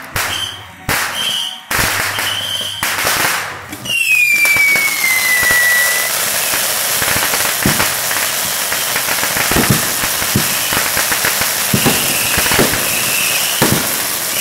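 Consumer fireworks firing: several sharp bangs in quick succession, some with short whistles, then a whistle that falls in pitch for about two seconds. From about four seconds in, a ground fountain sprays sparks with a loud, continuous crackling hiss and scattered pops.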